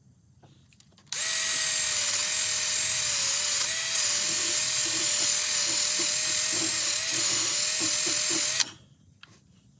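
Small handheld air tool running at a steady speed with a high whine, abrading the carburetor mounting surface on an intake manifold. It starts about a second in and cuts off suddenly near the end.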